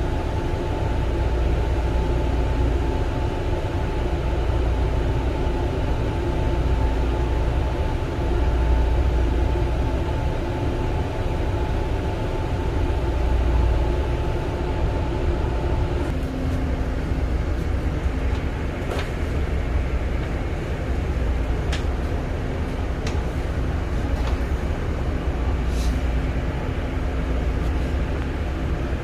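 Long Island Rail Road Kawasaki M9 electric railcar running, a steady low rumble with humming tones that change pitch about halfway through. A few sharp clicks come in the second half.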